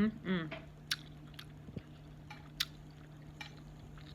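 A person chewing food, with a few sharp wet clicks and smacks of the mouth spaced about a second apart, over a steady low hum.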